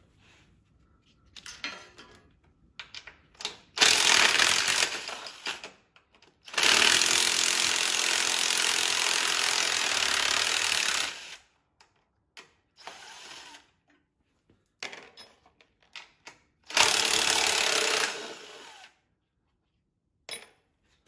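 Cordless drill-driver running in three bursts, a short one, a long one of about four seconds, then another short one, as it backs out bolts. A light click near the end.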